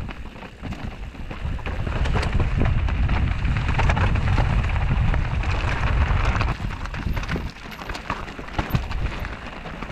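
Mountain bike riding down a rocky, loose-gravel trail, heard close up from the bike: tyres rolling over stones with a dense clatter of small knocks and rattles from the bike. It gets louder over the first couple of seconds and eases somewhat after about seven.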